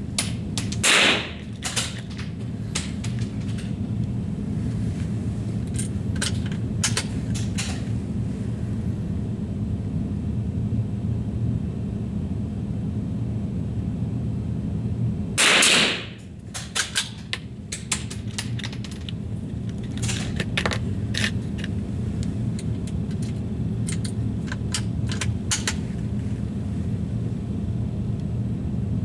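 Two rifle shots, each with a short ringing tail, one about a second in and one about halfway through. Scattered fainter sharp cracks and clicks come between them, over a steady low hum.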